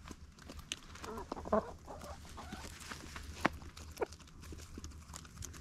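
Hens feeding from a tray: scattered sharp pecking taps, with a few short soft clucks about a second and a half in; the loudest tap comes about three and a half seconds in.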